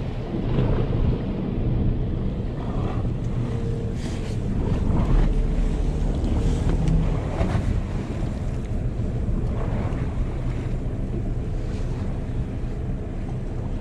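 Wind buffeting the microphone and sea noise aboard a fishing boat, with the boat's engine running steadily underneath.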